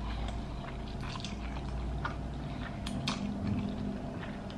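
A person chewing pork ribs, with a scatter of small, irregular mouth clicks and smacks.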